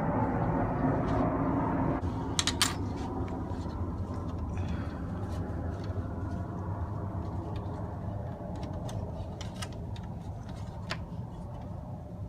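Scattered clicks and knocks of parts being handled during work on a car's cooling hoses, over a steady low background rumble that is louder for the first two seconds.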